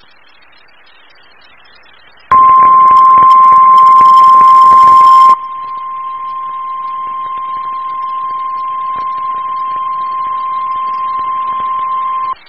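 NOAA Weather Radio 1050 Hz warning alarm tone, the single steady tone that signals a severe weather warning is about to be read. It comes in about two seconds in over faint radio hiss, very loud and distorted for the first three seconds. Then it drops sharply in level, holds steady, and cuts off abruptly near the end.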